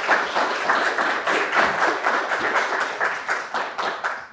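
Audience applauding, with dense hand clapping that dies away near the end.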